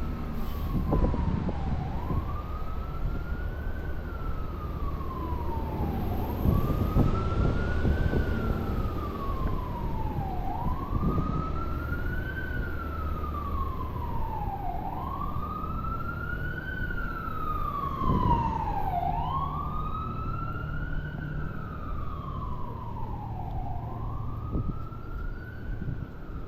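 An emergency vehicle's wail siren, slowly rising and falling in pitch about every four seconds, getting stronger toward the middle, over a steady rumble of street traffic.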